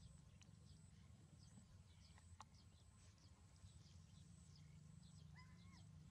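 Near silence with a low hum, faint high chirps repeating throughout and one short squeaky call about five seconds in.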